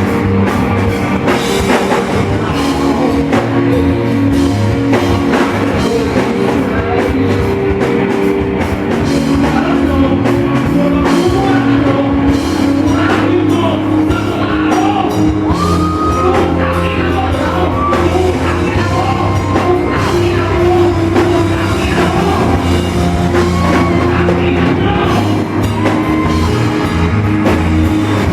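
A rock band playing loud music, with drum kit and singing.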